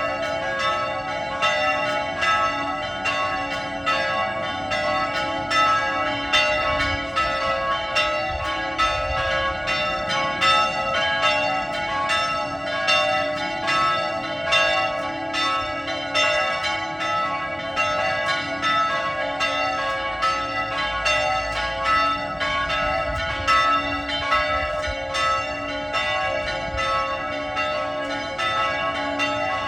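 Church bells ringing a continuous peal of quick, evenly repeated strikes whose tones run into one another. The peal calls the faithful to the morning pilgrimage and Mass.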